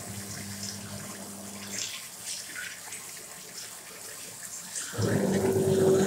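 Water from a washbasin tap running into the basin, low at first and clearly louder for about a second near the end.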